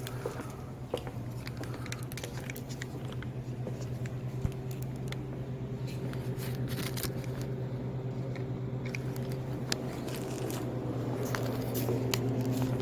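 A steady low hum with scattered clicks, crinkles and rustles of something handled close to the microphone.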